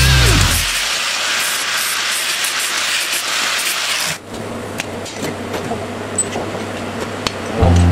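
Angle grinder with a cutting disc slicing through a steel strap, a loud steady hiss that cuts off suddenly about four seconds in. After it come a few light metallic clinks as the cut steel pieces are handled on the steel bench.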